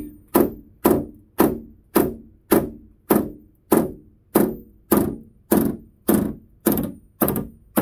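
Body hammer tapping out a dent in a car's steel body panel, about two evenly spaced strikes a second, each ringing briefly. The light taps are moving the dented metal back into shape.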